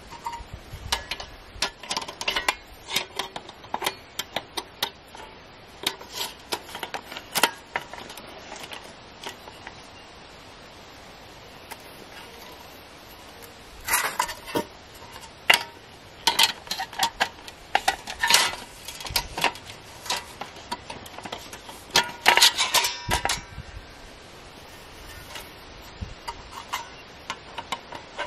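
Sheet-metal side panels being handled and slotted onto a pop-up fire pit's metal top: repeated light metallic clicks, clanks and rattles in clusters, with a quieter stretch a little before the middle.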